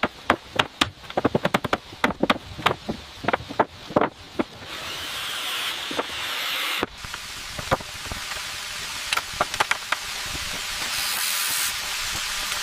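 A rapid run of sharp knocks and clatters, several a second, for about the first four and a half seconds. Then a steady spraying hiss builds up, with a few more scattered knocks.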